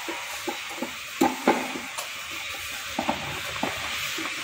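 Screwdriver levering and scraping in the seam of a Maruti WagonR manual gearbox's aluminium casing: irregular metal clicks and taps over a steady hiss, as the stuck case halves are slowly prised apart.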